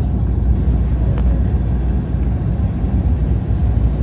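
Cabin noise inside an Embraer 195 airliner descending to land: a steady low rumble from its CF34 turbofan engines and the rushing air around the fuselage, heard from a window seat.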